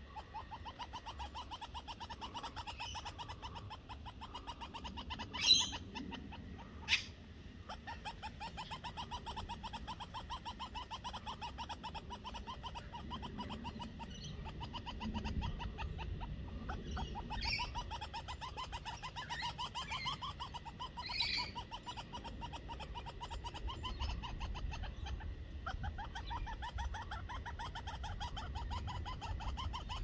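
Australian king parrots giving a soft, rapid, pulsing chatter that keeps up steadily, typical of a courting pair with the male feeding the female. Two short, sharp sounds stand out about five and a half and seven seconds in, and a few higher calls come later.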